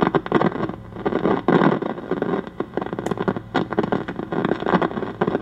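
RCA 8-X-541 tube radio's loudspeaker putting out loud, distorted crackling and sputtering over a steady low hum. The radio is overloading under a strong signal, which the owner takes for a failing automatic volume control (AVC).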